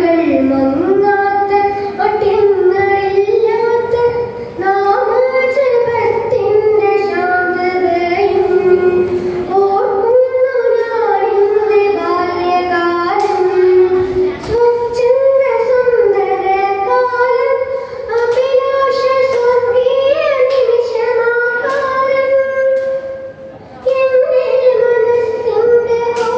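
A child singing a song solo into a microphone, one voice holding long melodic notes with no instruments, with a short break near the end.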